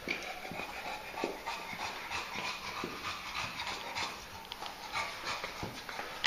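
English bulldog panting hard in a steady run of rough, noisy breaths, with one sharp knock at the very end.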